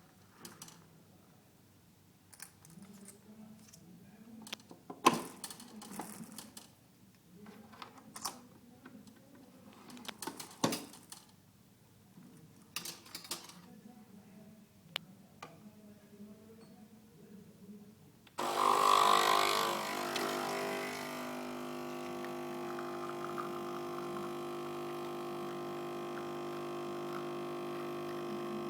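Clicks and knocks of a Nespresso Pixie capsule coffee machine being handled, then, about two-thirds of the way in, its pump starts with a sudden burst and settles into a steady buzzing hum as it brews.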